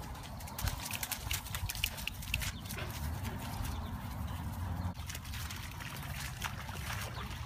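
Two Siberian huskies playing, with dog vocal noises, then paws splashing through standing water on a flooded lawn in the second half.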